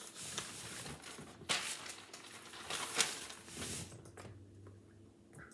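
Rustling and brushing of hands and clothing while signing in sign language, with two sharp slaps about a second and a half and three seconds in; quieter after about four seconds.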